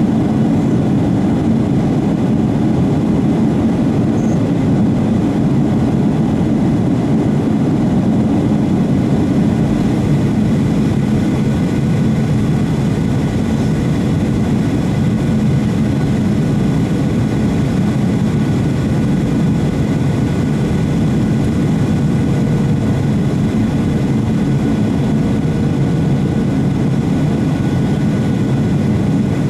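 Airliner cabin noise on approach: the steady drone of the engines and rushing air, a deep even rumble with faint steady whining tones above it.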